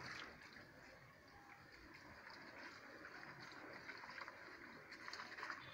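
Faint tap water running into a plastic bowl and spilling into a stainless steel sink as the bowl's contents are rinsed by hand.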